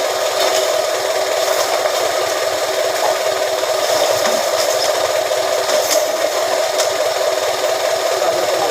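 Press machine running steadily with a constant hum, a few faint clicks about six to seven seconds in.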